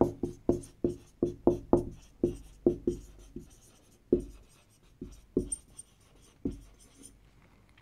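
Dry-erase marker writing on a whiteboard: a quick run of short strokes, several a second, thinning out after about four seconds and stopping shortly before the end.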